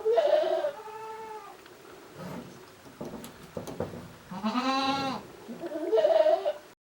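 Goats bleating: one call at the start, a long, loud bleat about halfway through and a shorter one near the end, with a few light knocks between them; the sound cuts off suddenly just before the end.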